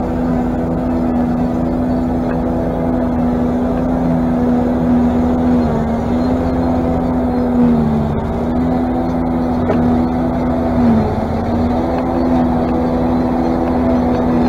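Claas Jaguar self-propelled forage harvester chopping haylage: the engine and cutterhead run with a loud, steady hum. The pitch sags briefly about three times as heavier crop loads the machine.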